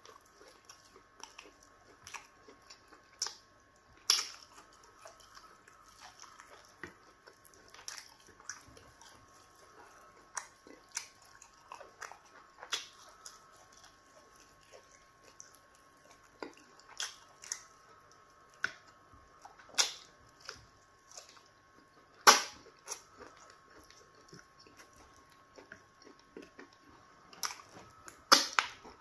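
Close-miked eating of pounded yam fufu dipped in slimy okra stew by hand: irregular wet mouth clicks, lip smacks and chewing, with a few louder smacks.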